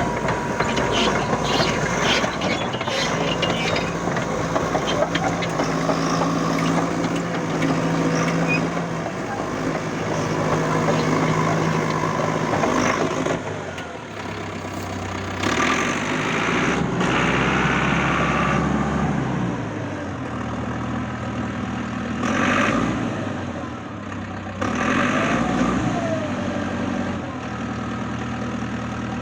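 Caterpillar D5K crawler bulldozer's diesel engine running, its speed rising and falling several times in the second half. A run of knocks sounds in the first few seconds.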